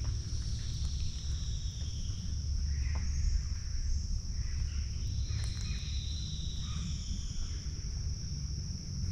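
Insects droning steadily at a high pitch, with a few short chirping calls and falling whistles over it and a constant low rumble underneath.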